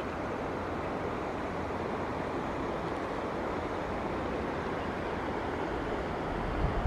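Steady rushing of wind and river water, with low buffets of wind on the microphone near the end.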